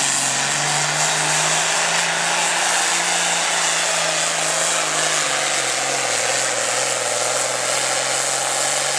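Diesel engine of a John Deere super farm pulling tractor running flat out under full load while dragging a weight-transfer sled, with a loud hiss high over the engine note. The engine pitch holds steady, then drops slightly about six seconds in.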